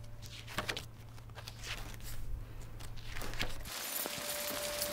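Soft paper rustles and light handling sounds from a spiral-bound notebook in a small room. Nearly four seconds in, the room hum drops away and a steady hiss of rain comes in, with a held musical note.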